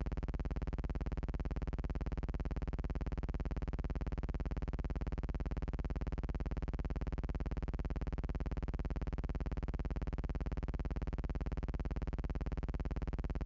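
A steady, unchanging low electrical buzz, a hum with many overtones that holds the same pitch and level throughout.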